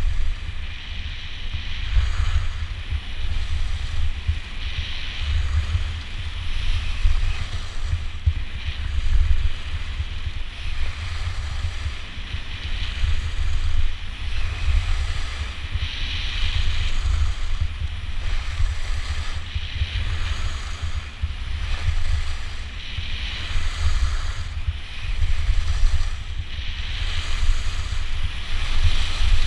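Wind buffeting the microphone while skiing downhill, over the hiss of skis on snow that swells every few seconds.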